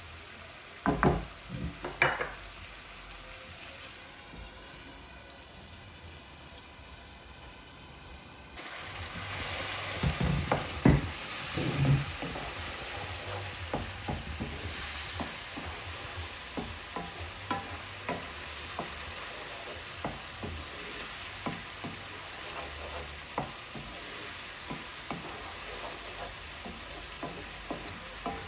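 Spices and tomato purée frying in oil in a frying pan, sizzling steadily while a wooden spatula stirs and scrapes through the thick curry base, with occasional louder knocks of the spatula against the pan. The sizzle gets louder a little over eight seconds in.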